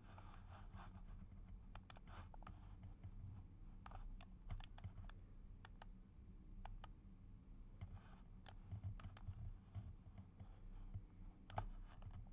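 Faint computer mouse and keyboard clicks, about twenty of them at uneven intervals, over a low steady hum.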